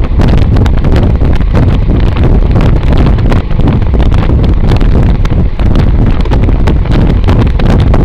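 Loud, continuous wind buffeting the microphone of a camera riding along on a bicycle, a low rumble that gusts and flutters without a break.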